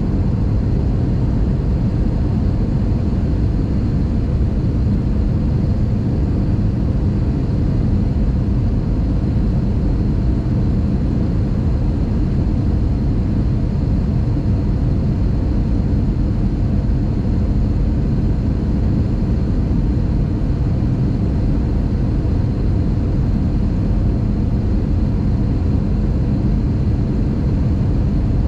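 Steady drone of engine and airflow noise heard inside the cabin of an Airbus A320 in flight, heaviest in the low end and unchanging in level throughout.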